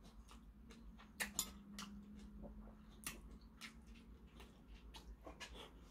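Faint close-up eating sounds: a string of small sharp clicks from metal chopsticks against a ceramic bowl and from chewing, two of them louder about a second and a half in.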